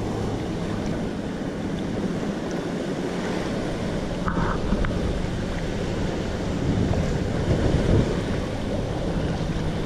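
Wind noise on the microphone over the steady wash of choppy sea water around a paddled kayak, swelling a little about seven to eight seconds in.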